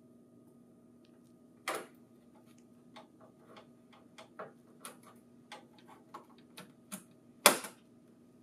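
A hard disk in its metal bracket handled and fitted onto a printer controller board: a string of small clicks and taps, with a louder click about two seconds in and the loudest one near the end.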